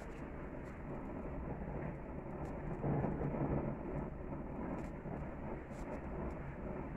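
Gas grill burners running under a tri-tip: a steady rushing flame noise with a few faint crackles. The noise swells briefly about three seconds in.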